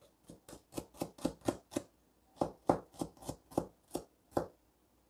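Chinese-style cleaver chopping a shallot on a wooden cutting board: a regular run of knocks, about four a second, with a short pause near two seconds in.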